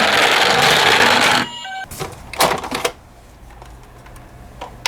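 Toy ambulance minicar rattling as it runs, a dense whirring clatter that cuts off about a second and a half in. It is followed by a short beep and a few light clicks, then quiet.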